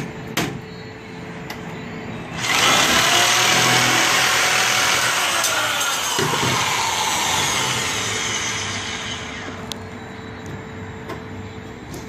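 Handheld electric sheet-metal shear switching on about two and a half seconds in and cutting through 20-gauge galvanized steel sheet: a loud, steady cutting noise lasting about seven seconds that then trails off. A few light clicks of the tool and sheet being handled come before and after it.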